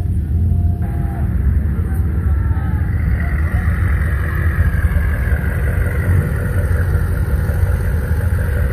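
Car engines running with a steady low rumble, with the noise of a car rolling close by growing toward the end.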